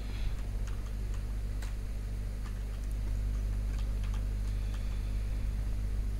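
Steady low electrical hum with scattered, irregular small clicks.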